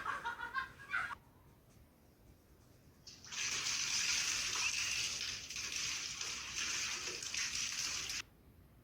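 A steady rush of running water starts about three seconds in and cuts off sharply about five seconds later.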